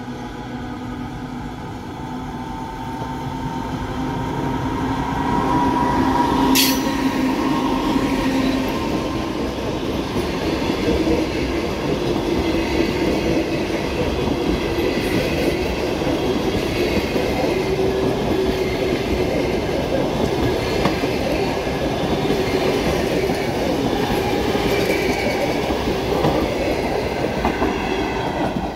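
EP2K electric locomotive approaching and passing at speed with a passenger train, getting louder over the first few seconds, with one sharp click about six and a half seconds in. Then its passenger carriages roll by with a steady rush and the clickety-clack of wheels over the rail joints.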